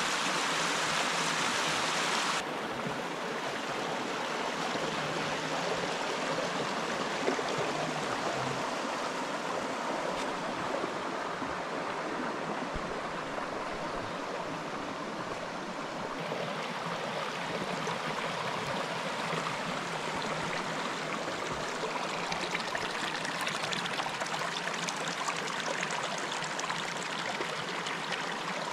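Shallow rocky stream running over stones and small rapids: a steady rushing babble of water. Its tone shifts slightly about two seconds in and again about halfway through.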